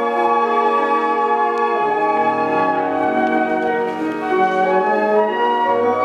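Flute ensemble playing slow, sustained chords. The held notes change every second or so, over a low line.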